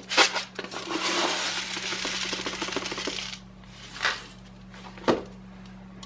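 Dry quick-cooking oats being poured into a bowl of birdseed: a dense rustling pour lasting about two and a half seconds, after a knock at the start and before a couple of light knocks.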